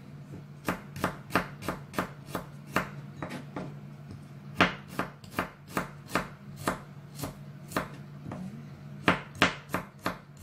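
Kitchen knife slicing garlic cloves thinly on a plastic cutting board: quick, sharp taps of the blade hitting the board, about three a second and unevenly spaced. A steady low hum runs underneath.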